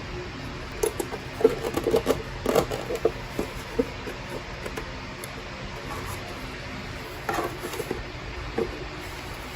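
Scattered plastic clicks, knocks and light scraping as the lower housing piece of a Cadillac CUE touchscreen unit is pried and pulled apart by hand. The clicks bunch up in the first few seconds and again near the end, over a steady background hum.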